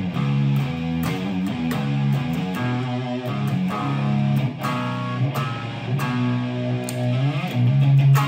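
Made-in-Japan Fender Jaguar electric guitar played through an amplifier: picked chords and single notes in a steady run of changes, each attack sharp. About seven seconds in, the pitch briefly wavers and bends.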